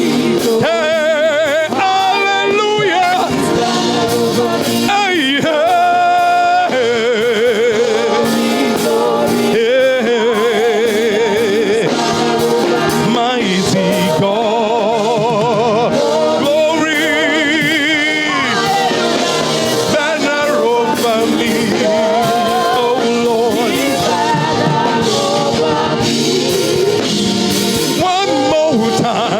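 Live gospel worship music: a band playing under a singer's held, wavering notes and runs with heavy vibrato, without recognisable words.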